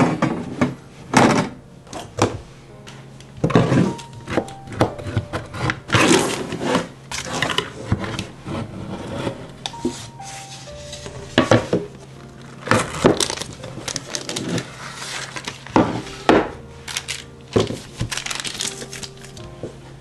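Handling sounds of a square metal baking pan and a wooden cutting board: repeated knocks and thunks, with parchment paper rustling as the baked slab is turned out of the pan onto the board. Soft background music plays underneath.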